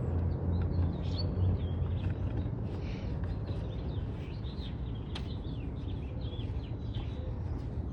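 Small birds chirping and twittering repeatedly over a steady low rumble, with a sharp click about five seconds in.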